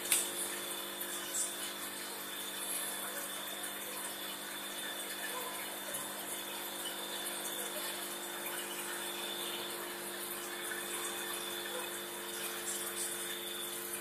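Running aquarium: a steady hum from the tank's pump over the constant hiss and burble of water and an air stone's bubbles, with one sharp click at the very start.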